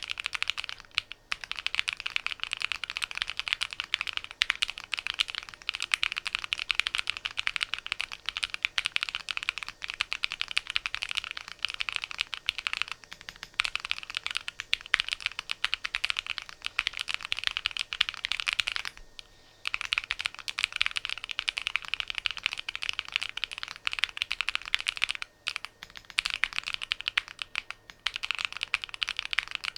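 Fast, continuous typing on a home-built Alice-layout mechanical keyboard: a dense run of key clicks, with a short pause about two-thirds of the way through.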